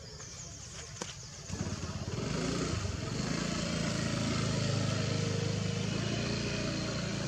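An engine running, a low steady hum that grows loud about a second and a half in and then holds.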